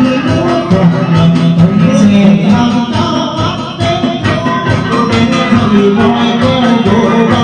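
Chầu văn ritual music from a live ensemble: a plucked moon lute (đàn nguyệt) and a fiddle play a moving melody over a steady ticking beat, with singing.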